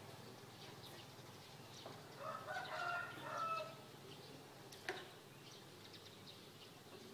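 A rooster crowing once, about two seconds in, lasting about a second and a half, with small birds chirping around it. A single short sharp click comes near five seconds.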